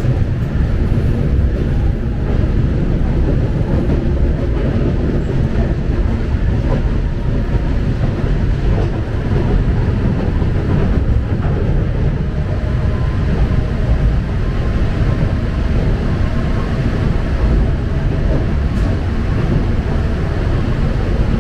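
Budapest Millennium Underground (M1) metro car running between stations, heard from inside the car: a steady, loud rumble of wheels on rail with faint steady whines above it.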